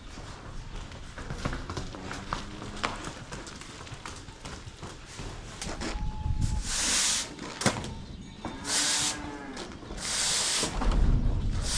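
Cattle moving about in a barn pen, with scattered knocks of hooves. Several short bursts of hiss come in the second half.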